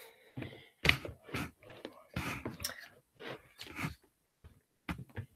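Irregular handling noise close to the microphone: a string of short rustles and soft knocks with brief gaps between them.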